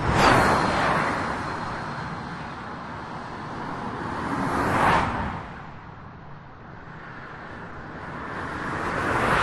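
Cars passing one by one on a freeway, unprocessed stereo microphones: one rushes by close right at the start, a second swells and passes about five seconds in, and a third is approaching near the end. A faint high whine trails the first car for a few seconds.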